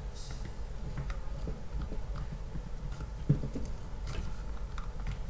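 Small plastic parts and a screw being handled and fitted by hand: scattered faint clicks and taps, with one sharper knock a little past three seconds, over a low steady hum.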